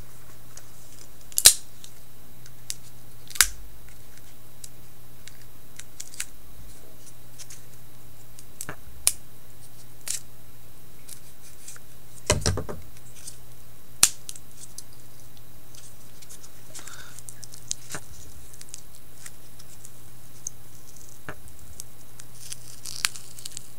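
A knife cutting the tape off a small foam parts box and the box being pried open: scattered sharp clicks, snips and scrapes, with one heavier knock about twelve seconds in. A low steady hum sits underneath.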